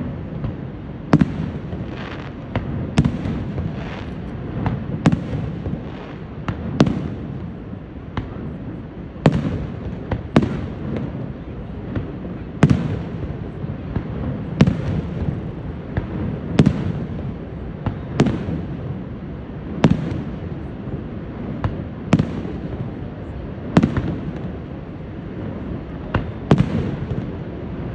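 Aerial firework shells bursting in a steady series, with a sharp bang about every one to two seconds over a continuous low rumble.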